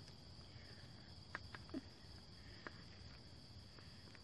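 Near silence with a faint steady high-pitched hum and a few faint clicks, as a knife works into a durian's spiky husk.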